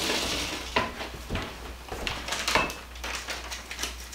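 Someone fetching a fork from a kitchen cutlery drawer: metal cutlery clinking, with a few sharp knocks from the drawer being handled.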